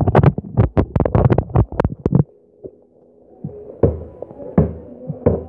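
Electronic music: a rapid run of sharp percussion hits over held synth tones, a brief lull, then a steady deep kick-drum beat coming in, about one and a half beats a second.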